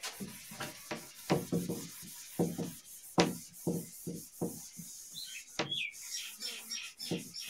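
Cloth wiping a whiteboard: repeated rubbing strokes, about two to three a second, with a brief run of high squeaks about five seconds in.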